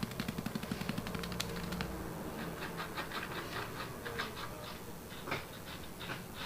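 Fine model-railway ballast pouring from a crumpled bag onto the track and baseboard. It starts as a rapid patter of tiny grains, and after about two seconds eases into slower rustling bursts as the bag is shaken.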